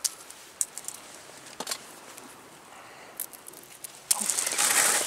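Small clicks and crackles as the shell is peeled off a live peeler crab by hand, then a louder rustle about four seconds in.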